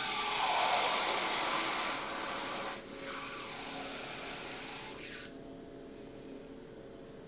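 Water spraying from a garden hose nozzle into a plastic measuring jug: a steady hiss that drops to a softer flow after nearly three seconds and dies away about five seconds in.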